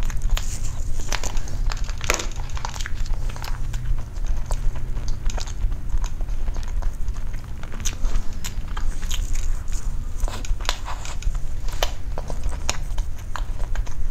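Close-miked eating sounds of a person chewing soft cream cake: many small wet mouth clicks and smacks, over a steady low hum.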